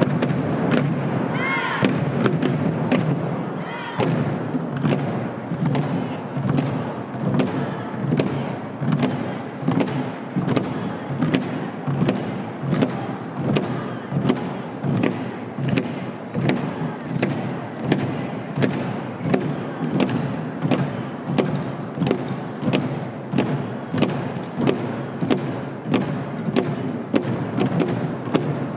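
Ensemble of Korean barrel drums (buk) struck together by a group of children, keeping a steady, even beat. The drumming is louder and denser for the first few seconds, then settles into a regular pulse.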